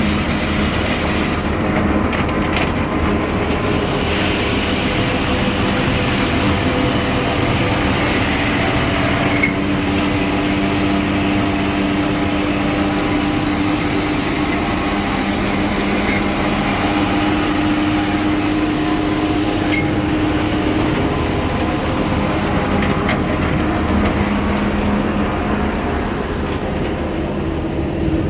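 Gehl 95XD grinder-mixer running steadily, a loud continuous mechanical noise with a steady hum under it.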